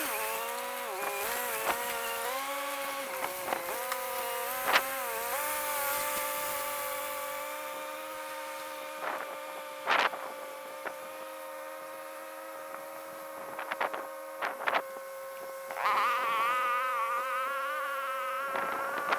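Flies buzzing close to the microphone, their pitch wavering up and down as they circle, over a steady hum. A few short knocks cut in, about ten seconds in and again around fourteen seconds.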